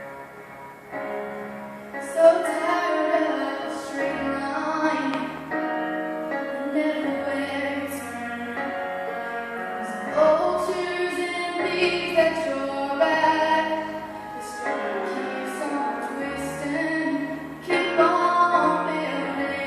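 A female voice singing a slow song over instrumental accompaniment with long held bass notes. The voice comes in about two seconds in, after a short accompaniment-only passage, and carries on in sustained phrases.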